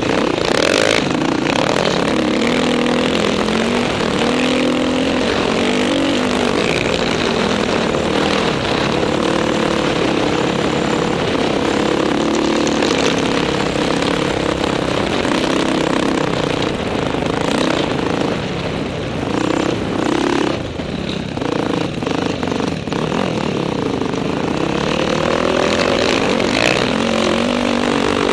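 Dirt bike engine running under load through soft sand, its pitch rising and falling continually as the throttle is worked, with a steady wind rush over the microphone. The engine eases off for a few seconds about two-thirds of the way through, then pulls again.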